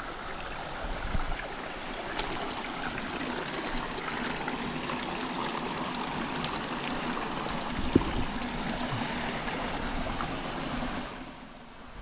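River water flowing over a stream bed, a steady rushing that dies down shortly before the end, with a single knock about eight seconds in.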